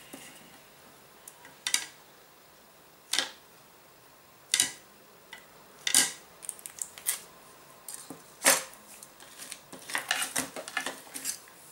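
Small craft materials handled on a worktable: irregular sharp clicks and taps, with a dense run of quick clicks and crackles near the end.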